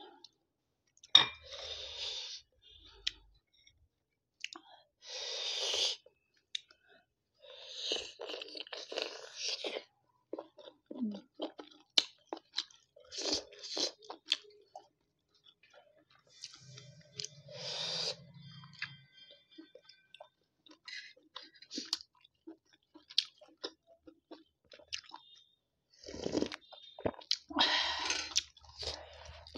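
Close-miked chewing of steamed chicken momos, in wet mouth-noise bursts of a second or two separated by short quiet gaps, with scattered small clicks.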